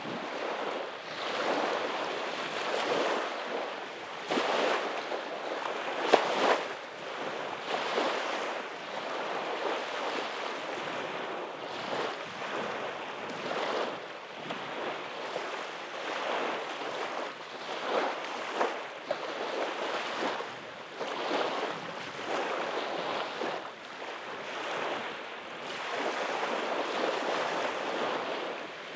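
Small waves breaking and washing up a sandy beach, the surf swelling and fading every couple of seconds, with one brief sharp tap about six seconds in.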